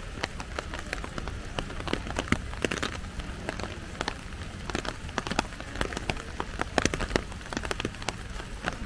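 Light rain: scattered raindrops tapping irregularly, several a second, over a low steady background rumble.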